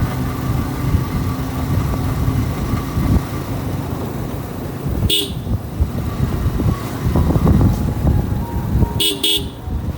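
Steady low rumble of a vehicle on the road, with short horn toots, one about five seconds in and two in quick succession near the end.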